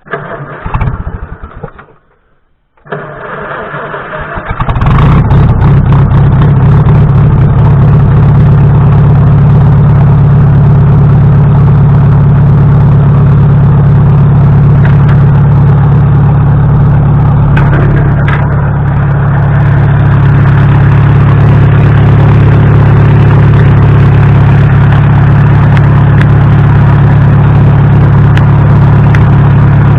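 Farmall H tractor's four-cylinder gasoline engine being started after a rewiring job: it turns over for a couple of seconds, catches about five seconds in, and then runs steadily and loudly.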